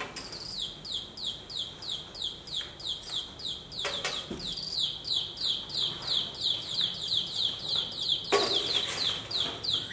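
Baby chicks peeping: a steady run of short chirps, each falling in pitch, about three a second.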